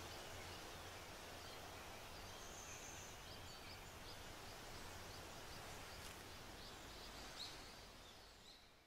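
Faint outdoor ambience with a few small bird chirps, fading out near the end.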